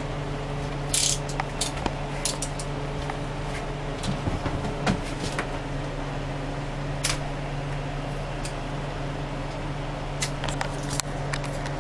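Scattered clicks and light knocks of repair work by hand, the sharpest about a second in and several close together near the end, over a steady low hum.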